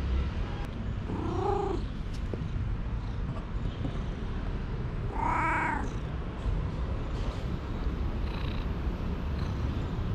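Ginger tabby cat meowing twice, a short call about a second in and a louder one about five seconds in, over a steady low background rumble.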